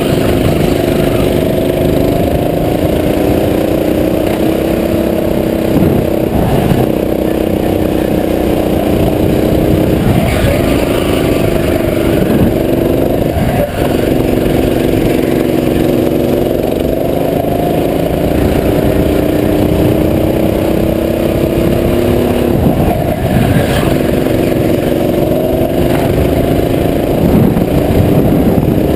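Go-kart engine running at speed, heard close up from on board. Its pitch rises and falls with the throttle through corners and along straights, with a brief dip about halfway through.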